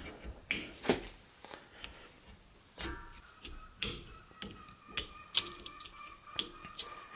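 A dozen or so irregular small metallic clicks and taps from a screwdriver and circlip pliers at the end of a brake master cylinder, as the piston is pushed in and the retaining circlip is fitted.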